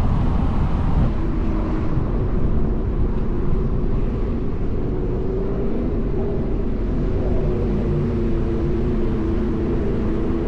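Car engine and road noise while driving, a steady low rumble with the engine note rising slowly in the second half as the car gathers speed.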